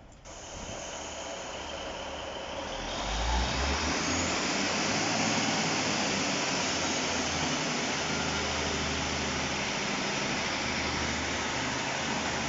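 Diesel train running close by, a loud steady rushing noise over a low engine hum that builds about three seconds in and then holds steady.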